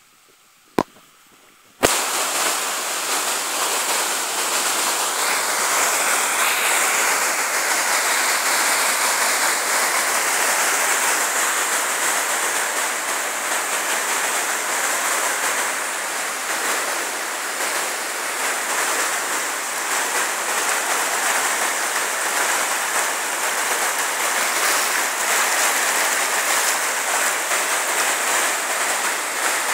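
Waterfall cascading over rock ledges: a steady rush of water that comes in suddenly about two seconds in, after a quiet start with two sharp clicks.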